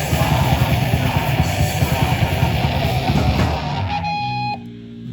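A heavy rock band playing live, with distorted guitars and drums loud and dense. About three and a half seconds in the full band breaks off, leaving a few held notes ringing out much more quietly.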